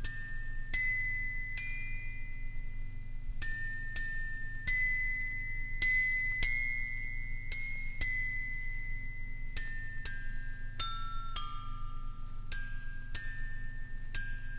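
Instrumental intro to a song: a slow melody of high, bell-like struck notes, each ringing and fading, with one note held longer about halfway through. A faint steady low hum runs underneath.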